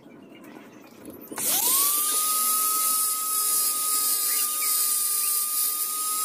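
Electric mini grinder (rotary carving tool) switched on about a second and a half in: its whine rises quickly and then runs steadily at high speed, with a hiss as its burr grinds into the wooden knife handle.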